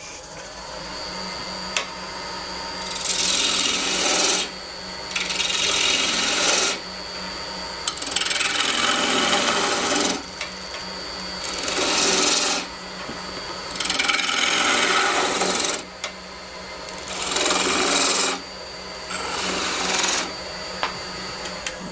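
Wood lathe motor running steadily with a low hum and a faint high whine, while a gouge cuts spinning spalted maple in about seven short rasping passes, each a second or two long with brief pauses between. The passes are light trial cuts to sharpen the edge of a turned disc and remove a flat spot.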